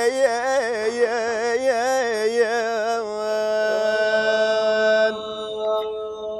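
Unaccompanied male voice singing an Iraqi devotional mawwal in the Awshar mode. It winds through a run of quick wavering ornaments on the call "ya", then holds one long steady note from about three seconds in, without drums.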